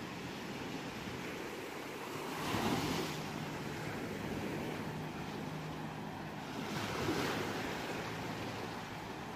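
Ocean surf breaking on a shore: a steady wash of water with two waves swelling and breaking, the first about two and a half seconds in and the second about four seconds later.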